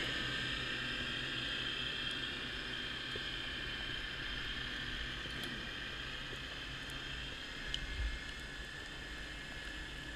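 Steady underwater hiss with a low hum, as picked up by an underwater video camera, with a few faint ticks and a short knock about eight seconds in.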